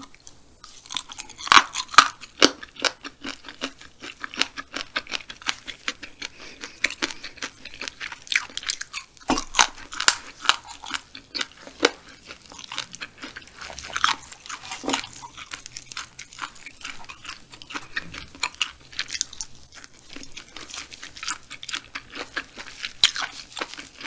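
Crunching and chewing of crispy grilled frog, close to the microphone: many sharp, crackly bites and chews that keep coming without a break.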